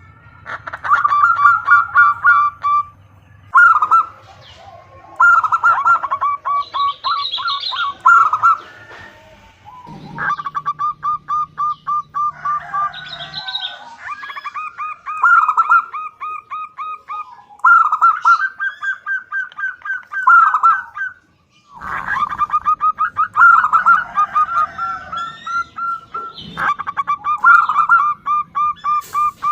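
Zebra dove (perkutut) calling: bursts of a few seconds of rapid, evenly repeated cooing notes, at times overlapping, presented as a female's call to draw a male.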